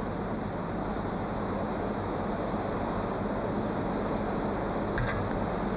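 Steady hum and noise of a car-factory assembly hall where engines and drive units are being pre-assembled. There is a faint tick about a second in and a sharper metallic clink near the end.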